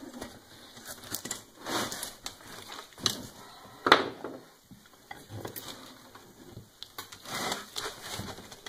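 A riding mower tire's rubber bead being forced onto its steel wheel rim with a metal lever under heavy hand pressure: irregular scrapes, creaks and knocks of rubber and metal, the loudest about four seconds in.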